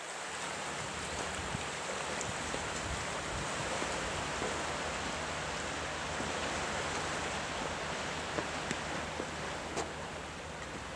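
Sea surf washing among shore rocks: a steady rushing noise, with a few small clicks near the end.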